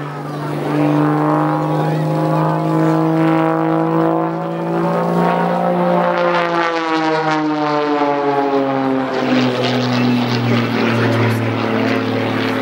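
Aerobatic single-engine propeller plane's engine and propeller running at display power overhead, the pitch climbing through the first half and sliding down in the second as it manoeuvres.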